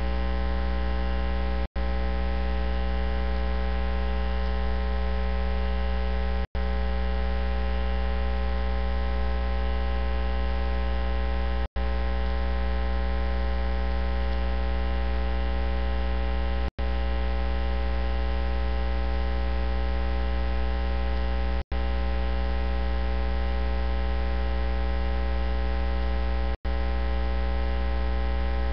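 Loud, steady electrical mains hum with a dense ladder of overtones and no voice coming through, broken by six split-second silent dropouts about five seconds apart. The speaker is visibly preaching, so the hum has taken the place of the sermon: a fault in the recording or broadcast audio feed.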